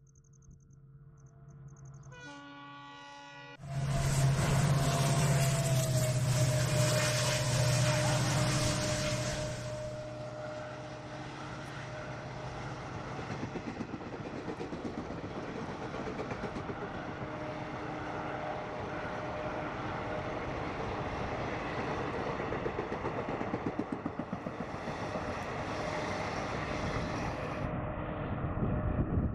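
Diesel locomotive sounding its horn briefly about two seconds in, then passing loud with its engine running. From about ten seconds in comes the steady rumble and clatter of the long rake of passenger coaches rolling by.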